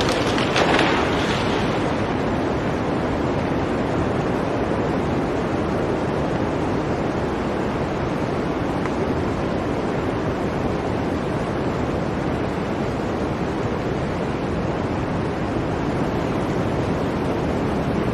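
Blizzard wind blowing in a steady, dense rush, with a stronger gust about a second in.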